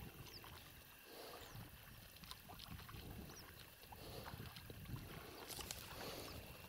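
Faint, irregular splashing of plastic paddles dipping into the water as an inflatable rubber boat is rowed.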